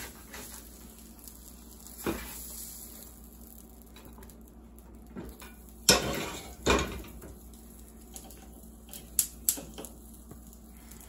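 A spatula scraping and knocking against a frying pan as a cooked egg is lifted out, and the pan being moved off the stove. There are a few sharp clanks; the two loudest come close together about six seconds in.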